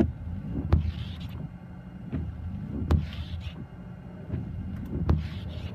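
Inside a running car in heavy rain: a steady low engine hum, with windshield wipers knocking at each end of their sweep and swishing across the glass about every two seconds.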